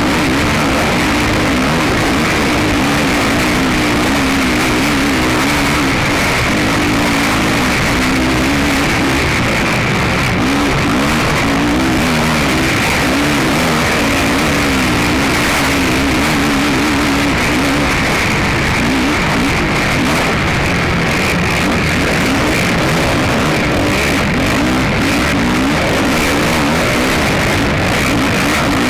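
Racing ATV's engine heard from on board, its revs rising and falling quickly and constantly as the throttle is worked, under rock music.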